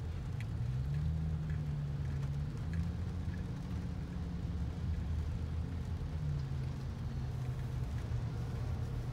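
Low, steady rumble and hum of a car heard from inside the cabin in slow freeway traffic; a low tone steps up in pitch about a second in and drops back about six seconds in.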